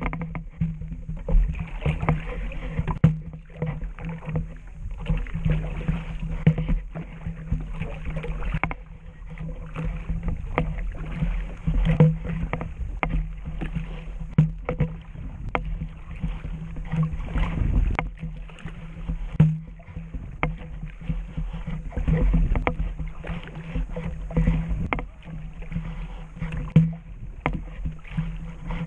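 Water sloshing and splashing around a plastic sit-on-top kayak, with frequent irregular knocks and bumps against the hull, over a steady low hum.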